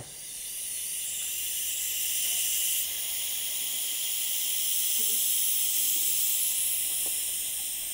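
Propane hissing steadily from a propane canister's valve and hose fitting as gas flows down the hose to pressurize a 3D-printed tank. The fitting is not very tight, so some gas escapes there. The hiss builds over the first second, then holds and eases slightly near the end.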